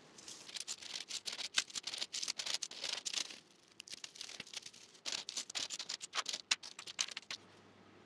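A plastic bubble bag crinkling while a handful of small 3D-printed plastic keychains clatter into it, in two busy runs of rattling and crinkling separated by a quieter pause.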